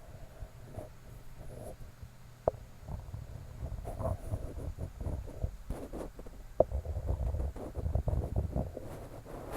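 Close-miked handling and rubbing noise, low and uneven, from ASMR trigger objects worked against a microphone. Two sharp taps come about two and a half seconds in and again about six and a half seconds in, with a few lighter ticks between.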